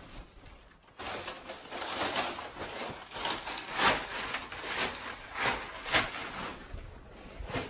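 Plastic bags rustling and crinkling in irregular bursts as they are handled.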